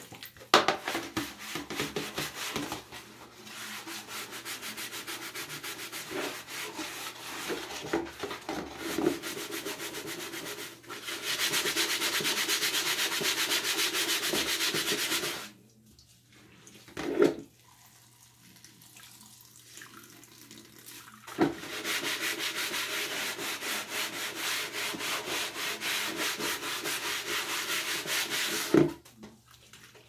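Rapid, even scraping and rubbing strokes on a wet plastic tub in a sink, in two long bouts with a quiet pause and a couple of knocks between them. Water splashes into the basin near the start.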